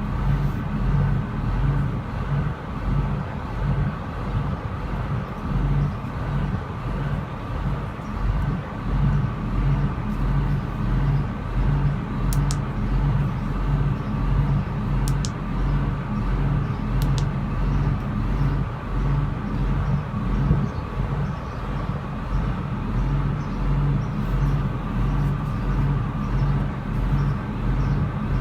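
Cummins QSM11 inline-six diesel engine idling steadily with an even low pulsing throb, plus a few faint high clicks near the middle.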